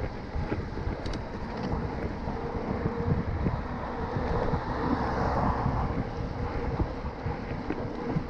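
Wind buffeting an action camera's microphone while riding a mountain bike along a brick-paved path, the tyres rumbling over the paving. The noise swells briefly about five seconds in.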